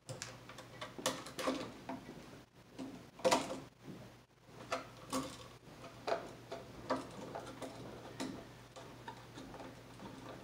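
Irregular clicks and small snaps of hand tools, pliers and wire strippers, working electrical cable at a plastic electrical box. The loudest snap comes about three seconds in, over a low steady hum.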